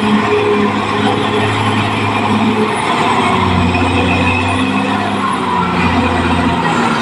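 Caterpillar D6R XL crawler dozer's diesel engine running steadily under load, its low note dropping slightly about halfway through, with a faint high whine rising and falling above it.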